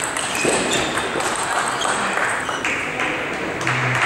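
Scattered sharp clicks of table tennis balls hitting bats and tables in a large hall, over steady hall noise.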